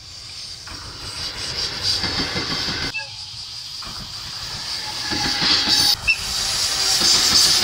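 Freight train hauled by a red ED76 electric locomotive approaching on the line, its rumble and hiss growing louder. The sound changes abruptly twice, about three and six seconds in, as one approach gives way to another.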